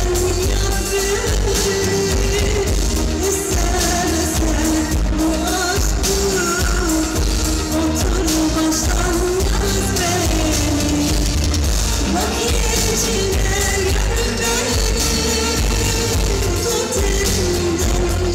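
A Turkish pop song played live: a woman singing into a microphone over electronic keyboards and a drum kit, with a heavy, steady beat.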